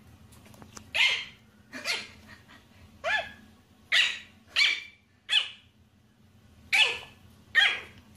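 A small puppy yapping: about eight short, sharp, high-pitched barks, roughly one a second with uneven gaps.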